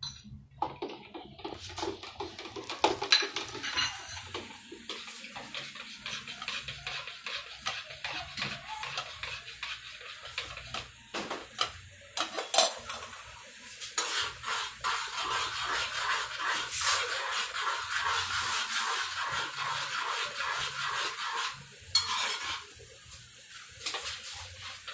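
A spoon stirring and clinking against the sides of a cup, dissolving cornstarch in water: scattered knocks at first, then a rapid, continuous clatter of quick stirring for several seconds past the middle.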